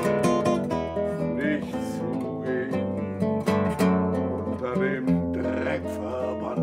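Acoustic guitar music, strummed and picked, with a quick run of plucked notes.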